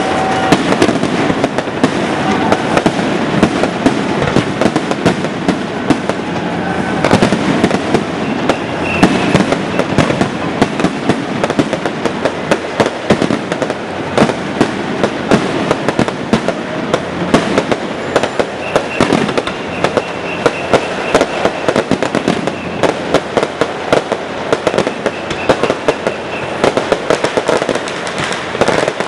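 Fireworks barrage: aerial shells bursting overhead over a continuous crackle, with many sharp bangs in quick succession and no let-up.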